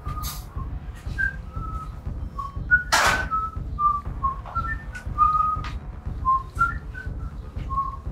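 Someone whistling a tune: a string of short notes hopping up and down in pitch. A short noisy burst cuts in about three seconds in, over a low rumble.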